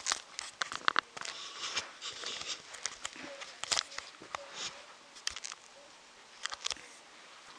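Irregular sharp clicks, taps and rustles of a plastic LEGO model being handled, loudest about a second in and again near four seconds in.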